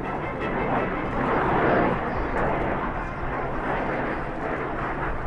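Jet noise from Blue Angels F/A-18 Hornets flying by, a steady rushing roar that swells slightly about two seconds in.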